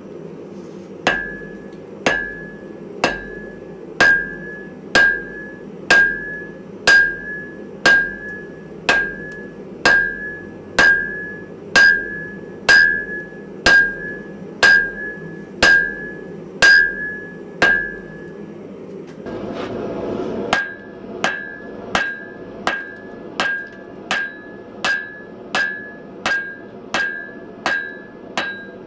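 Blacksmith's hammer striking metal on an anvil in a steady rhythm, each blow with a bright ring: about one blow a second at first, then after a brief pause lighter, quicker blows. A steady low noise sits under the strikes for the first part.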